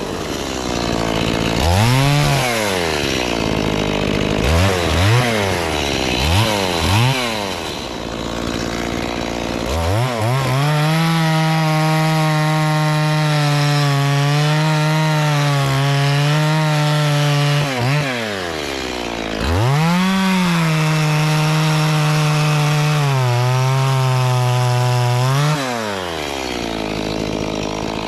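Stihl MS 460 two-stroke chainsaw idling, blipped up to speed three times in quick succession, then held at full throttle for two long cuts into jackfruit wood, its pitch wavering and dipping under load. It drops back to idle near the end.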